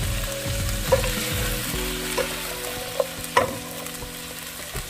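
Onions and fresh mint sizzling as they fry in oil in a pan, being stirred, with a few sharp clicks against the pan.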